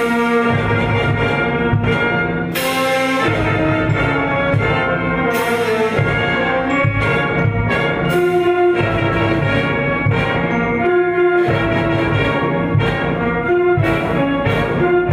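Orchestral background music led by brass, playing a melody over a steady low accompaniment.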